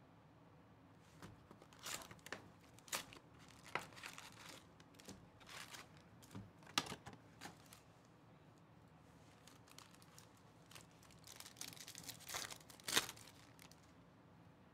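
Foil-wrapped Topps Chrome trading card packs being handled and torn open: crinkling and tearing of the foil wrappers in short, irregular bursts, with the sharpest tear near the end.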